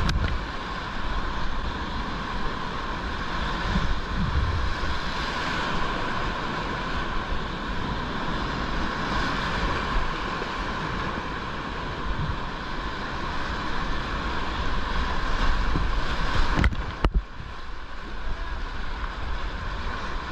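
Whitewater rapids rushing and splashing close around a kayak, with paddle strokes throwing water onto the camera and low buffeting thumps. Near the end, after a couple of sharp knocks, the rush drops somewhat as the boat reaches calmer water.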